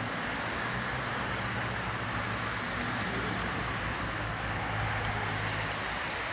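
Distant diesel railcar's engine droning steadily as it approaches, over a steady hiss, with a few faint high ticks.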